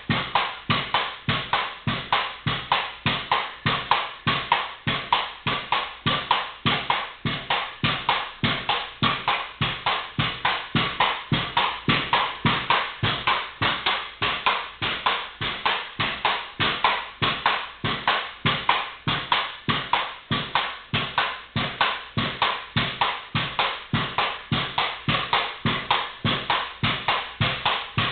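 Pogo stick bouncing nonstop on a concrete floor: a steady rhythm of sharp landings, two to three a second, each one the rubber tip striking the floor as the spring compresses.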